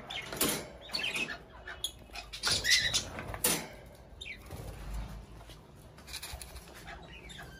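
Caged lovebirds chirping and squawking in short calls, with wing flutter and the clatter of a plastic feed cup being pulled from the cage wire; the sharp sounds come mostly in the first three or four seconds, then it grows quieter.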